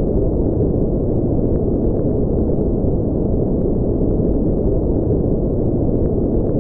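Steady, deep noise of a spaceship-engine ambience sound effect, like brown noise, with no change in level and a few faint ticks.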